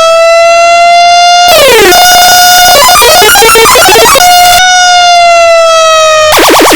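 Sterling Model 30 Sirenlite fire truck siren sounding very loud: a held tone creeping upward, then a quick downward swoop about a second and a half in. A choppy, jumbled warble follows, then a held tone sliding slowly lower, and a rapid fast-wobbling yelp just before the end.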